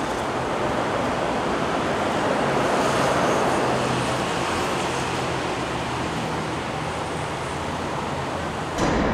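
SNCF Y 8000-class diesel shunter running along, a low engine hum that is strongest in the middle, over a steady rumble of street traffic.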